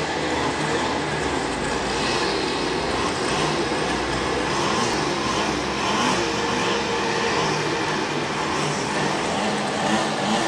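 Two-stroke engine of a STIHL FR 350 backpack brush cutter running at working speed with its trimmer head spinning, the pitch wavering up and down as the throttle is worked.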